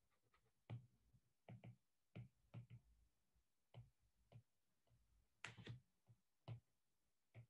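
Faint stylus taps and clicks on a tablet's glass screen during handwriting: short, irregular ticks about two a second, with a louder cluster about five and a half seconds in.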